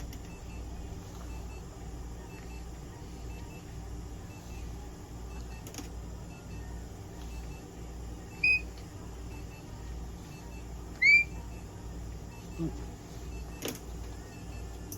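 A guinea pig gives two short, high squeaks about two and a half seconds apart, over a steady low machine hum.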